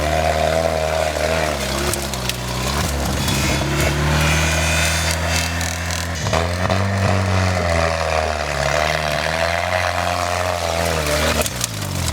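GAZ-69's four-cylinder side-valve engine running under load as the vehicle drives, its revs dropping and picking up again a few times.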